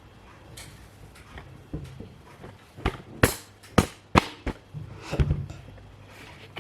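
Handling noise: a run of short, sharp knocks and clicks, about half a dozen, with some rustling between them, the loudest in the middle.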